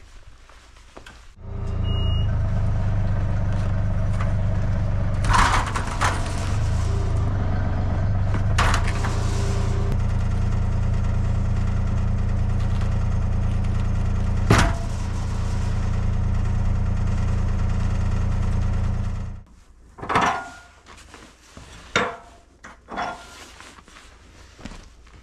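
A motor-driven machine starts abruptly and runs at a steady, even hum for about eighteen seconds, with three sharp knocks along the way, then cuts off suddenly. A few separate clunks and knocks follow near the end.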